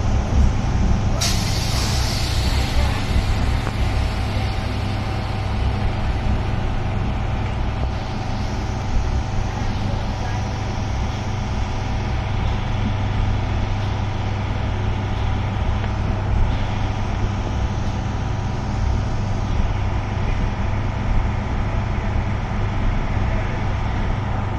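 Passenger train running, heard from inside the coach: a steady low rumble of the wheels on the track. About a second in a sudden hiss sets in and fades away over the next few seconds.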